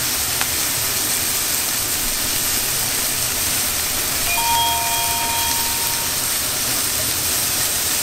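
Steady roar of a high-powered commercial wok burner with chicken stock hissing and bubbling in the wok. A brief cluster of steady tones sounds about four seconds in.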